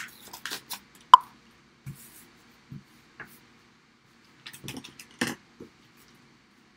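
Sheet of stencil film on transfer tape being handled and flipped over: scattered crinkles and light taps, with one sharp click about a second in and a cluster of crinkling near the end.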